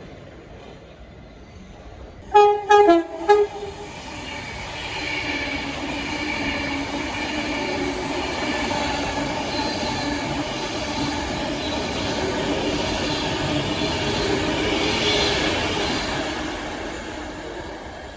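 A train horn gives several short blasts at two pitches. Then a train passes, its rumble building up, holding, and fading away over about twelve seconds.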